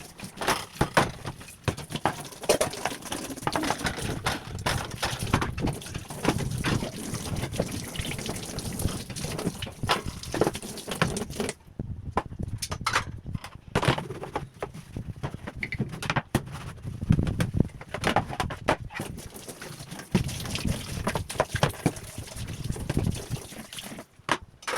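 Irregular knocks, clicks and clatter of things being handled, with water sounds.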